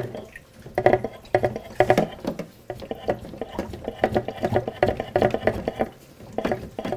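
A hand-pumped fish tank siphon worked in a run of short, quick strokes, about two to three a second, drawing no suction. The pump is fitted the wrong way round.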